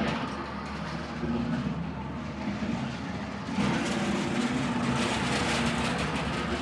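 Dragon train ride running with a steady rumble. A louder rushing noise comes in about three and a half seconds in.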